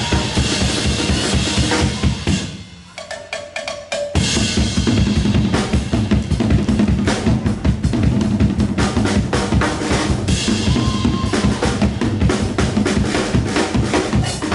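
A live band playing a song with a driving drum-kit beat, bass and guitar. About two seconds in the band drops out briefly to a few sparse hits and a single held note, then comes back in full about four seconds in.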